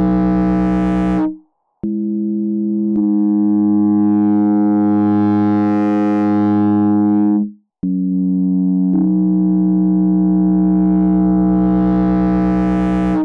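Low synthesizer tones held as three long notes, broken by two short silences about a second and a half and seven and a half seconds in. It is a water-ejection tone, built around 165 Hz and its octaves, meant to shake water out of a phone speaker.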